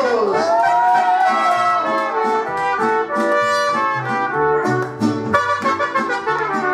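Mariachi band playing an instrumental passage, with the trumpet carrying the melody over strummed guitars and a bass line.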